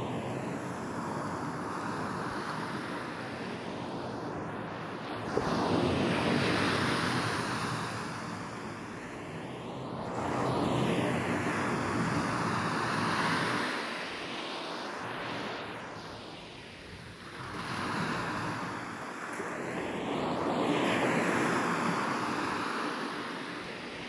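Ocean surf on a sandy beach: small waves break, rush up and wash back, swelling and falling away about four times. The sound is processed as 8D audio, panned around the listener, which gives it a slow sweeping whoosh.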